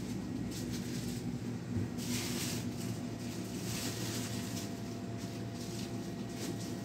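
Steady low hum of a shop's room tone, with brief rustling noises about two and four seconds in.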